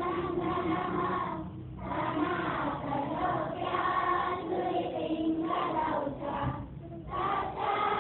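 A group of schoolchildren singing a prayer together in unison, in phrases with short breaks between them.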